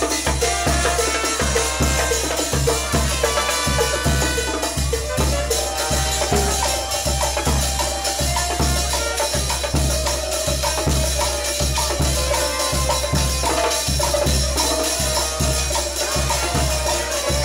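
Live Peruvian brass band (banda) playing: a bass drum and cymbals keep a steady, quick beat under trombone and saxophone lines, with small percussion shaking along.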